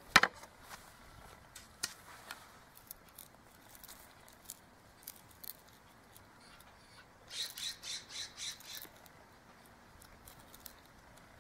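Knife tip scraping into a wooden fireboard, cutting a small starting depression for a hand-drill spindle: faint scattered ticks, then a run of about six quick scraping strokes about seven seconds in.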